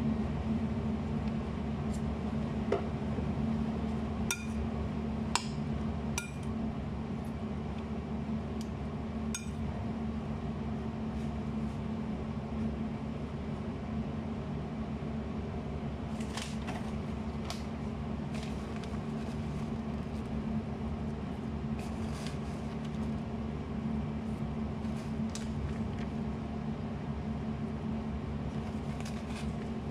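A steady low mechanical hum, with a few light ringing clinks of glass or dishware between about four and ten seconds in, and soft knocks and handling noises later on.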